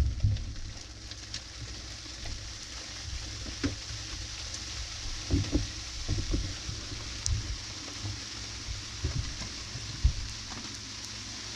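Dishwasher wash cycle heard from inside the tub: a steady hiss of water spraying, with irregular low thumps and knocks, the loudest right at the start.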